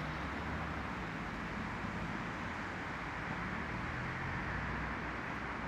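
Steady outdoor town ambience: a low, even hum of distant road traffic.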